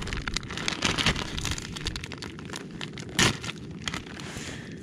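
Irregular clicks, crackles and crinkling of cooking over a charcoal fire, with one louder knock a little over three seconds in.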